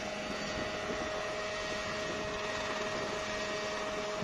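Large unmanned helicopter's engine and rotors running as it hovers low: a steady mechanical drone with a few held tones.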